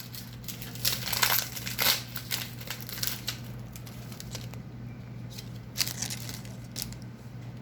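Foil Pokémon booster pack wrapper crinkling as it is torn open and handled, dense for about the first three seconds, then a few scattered crinkles. A steady low hum runs underneath.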